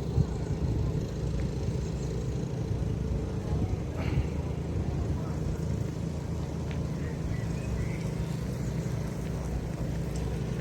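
An engine running steadily: a continuous low drone with a few faint high chirps over it.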